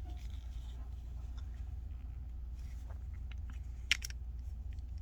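Faint clicks and creaks of the small plastic housing of a Vufine VUF-110 wearable display being handled as it is taken apart, with one sharper click about four seconds in, over a steady low hum.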